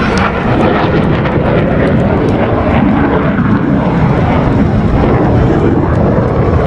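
Jet roar from U.S. Air Force Thunderbirds F-16 fighters flying past in a demonstration, loud and steady throughout.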